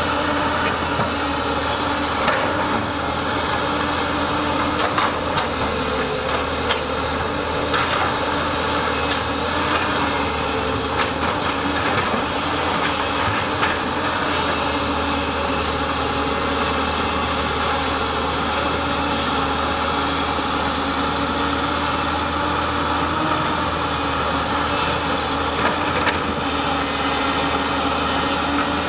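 Excavator diesel engines running steadily while digging, with occasional short knocks.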